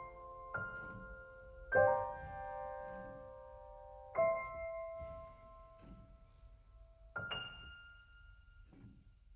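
Slow solo piano music: a few sustained chords and single notes struck every one to three seconds, each left to ring out, growing quieter near the end.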